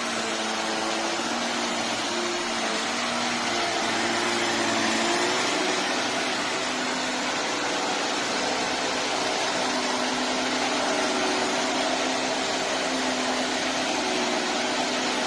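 VOLUEX Jimmy JV35 handheld mite vacuum running steadily over a mattress: a rushing suction noise with a motor hum whose pitch shifts slightly about five seconds in and again near ten seconds.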